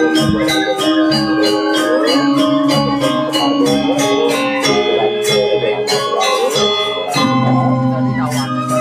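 Balinese gamelan gong ensemble playing, a fast, even pulse of struck metal keys over long ringing tones; the low notes change about seven seconds in.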